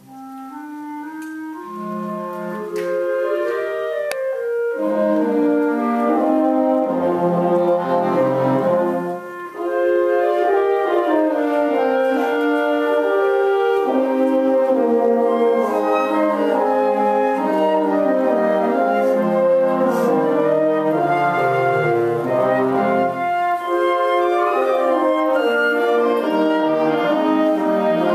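A student wind ensemble with brass and clarinets playing a piece together under a conductor; it comes in softly and swells to full volume over the first few seconds, with a brief break about nine seconds in, then plays on steadily.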